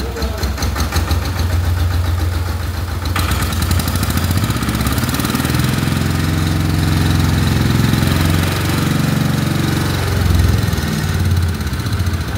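Engine of a small sanedo tractor running steadily as it drives along spraying, with a hiss joining about three seconds in.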